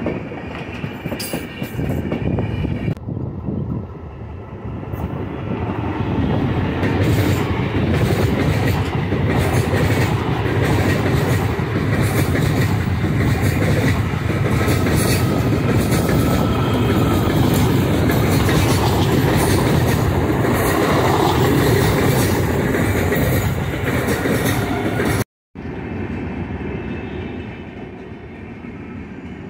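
Passenger trains passing close by: loud steady rumble of wheels on rails, with wheels clattering over rail joints in the first few seconds. The sound cuts out briefly about 25 seconds in, then a quieter train rolls past.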